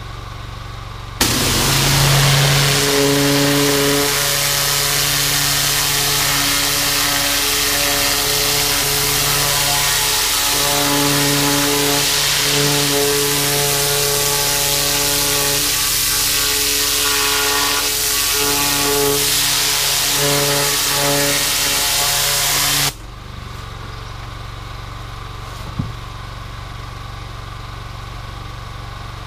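4,000 PSI gas pressure washer with a zero tip. Its engine runs at idle, then about a second in the trigger opens and the high-pressure jet blasts the deer hide with a loud hiss over the engine's pitched note under load. The spray cuts off suddenly near the end and the engine drops back to idle.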